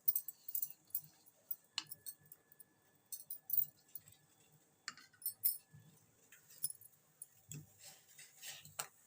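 Spoon scraping and tapping against a small mixer jar to empty coarsely ground spice mix into a pot: an irregular string of light clinks and scrapes.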